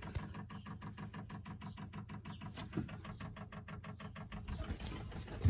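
Chinese diesel heater's fuel dosing pump ticking rapidly and evenly, about five or six clicks a second, while priming diesel through the fuel line. The ticking fades near the end, and a louder knock follows.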